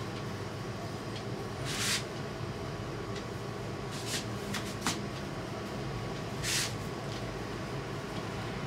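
Short crackling rustles of gel-stiffened curly hair being scrunched by hand to break the gel cast, about five of them, the loudest about two seconds in and about six and a half seconds in, over a steady low hum.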